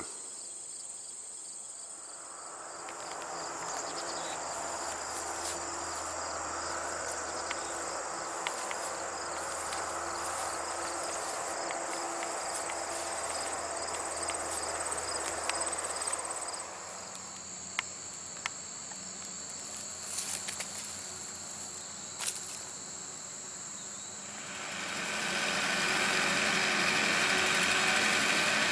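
Insects chirping in a steady high, fast-pulsing chorus. A broad rushing noise comes and goes beneath it, with a few sharp clicks in the middle, and swells to become the loudest sound near the end.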